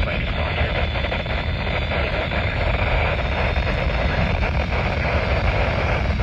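Steady hiss of radio static from a radio receiver, a noisy signal with no clear voice or tone in it.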